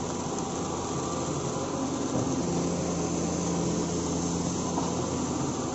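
Heavy construction machine's diesel engine running steadily, its note swelling a little in the middle.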